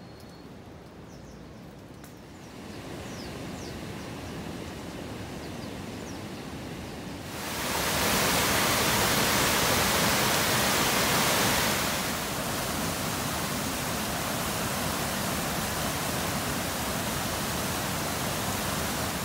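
Water spilling over a low river weir, a loud steady rush that comes in suddenly about seven seconds in and settles a little quieter for the rest. Before it, a softer steady hiss.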